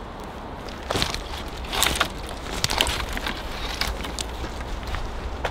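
Dry dead wood cracking and rattling as a thin sapling and branches are shaken and pulled by hand: a run of short sharp snaps starting about a second in, with a louder crack at the very end, over a steady low rumble of wind on the microphone.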